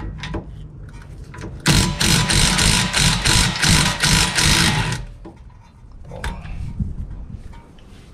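Cordless Ryobi impact wrench hammering for about three seconds, starting a little under two seconds in, as it breaks loose and spins out a brake caliper bracket bolt.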